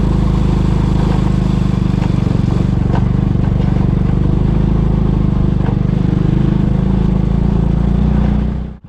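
Honda Biz 100 underbone motorcycle's single-cylinder four-stroke engine running steadily at cruising speed while riding. The sound drops out abruptly near the end.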